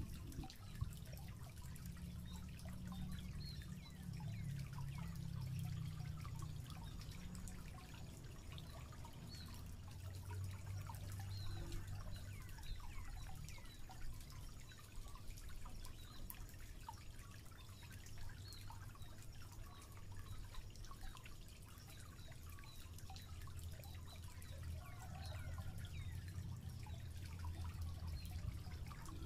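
Faint outdoor ambience of water trickling and dripping, with many small scattered ticks and a steady low rumble underneath.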